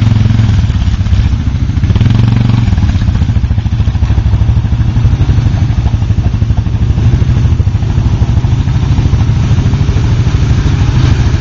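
Quad ATV engine running steadily at low revs, rising briefly near the start and again about two seconds in.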